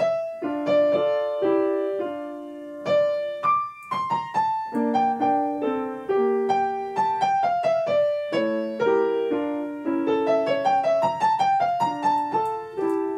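Grand piano played: a melody over lower chords, each note struck and left ringing. The notes come faster and closer together in the second half.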